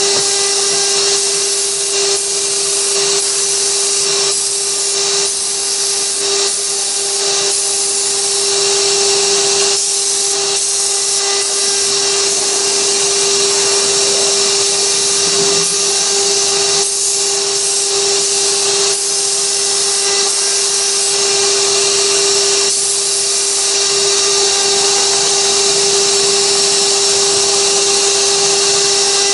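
6060 desktop CNC router's spindle running with a steady whine while the bit carves a 3D relief in wood, over a dense high hiss of cutting that dips briefly now and then.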